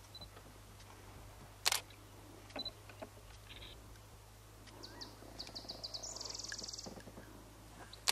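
Wild bird calls: a quick run of short high chirps about five seconds in, followed by a buzzy rattle lasting about a second. A few sharp clicks also sound, the loudest about two seconds in and another at the end, over a faint steady low hum.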